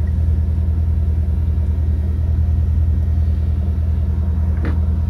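Jaguar XF engine idling steadily, with one short click about four and a half seconds in.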